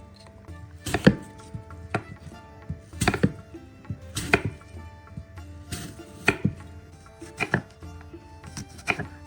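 Knife chopping food on a cutting board: single sharp chops at an uneven pace, roughly one a second.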